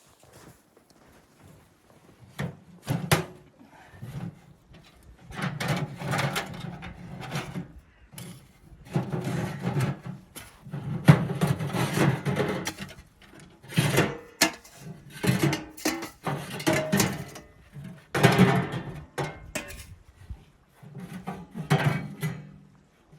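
Irregular bouts of handling noise from gear being worked by hand: rubbing and scraping with knocks, in bursts of one to two seconds separated by short pauses.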